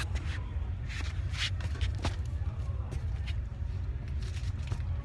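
Shuffling, rustling and a few light knocks as a person climbs up, over a steady low rumble.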